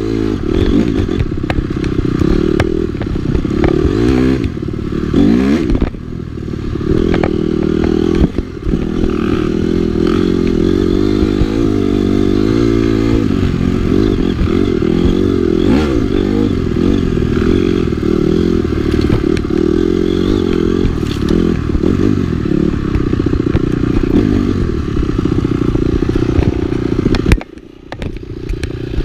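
Dirt bike engine running under way, its revs rising and falling, with clattering and knocks over rough ground. Near the end it drops away sharply for a moment, then picks up again.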